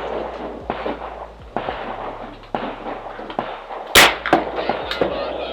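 Gunshots on a firing range: a string of sharp, more distant reports about a second apart, and one much louder, close shot about four seconds in.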